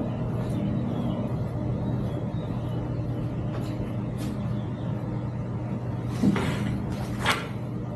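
Light clicks, then two sharper knocks near the end, as bicycle parts are handled and fitted over a nut, over a steady low hum.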